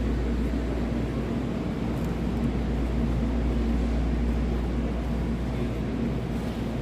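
Steady store background noise: a constant low hum under an even rushing hiss, with no distinct events.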